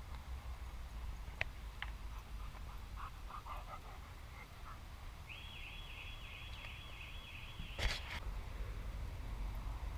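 Low rumble of wind or handling on the microphone, with a couple of faint clicks. A high, wavering tone repeats rapidly for about three seconds from about five seconds in, and a sharp knock comes near the end.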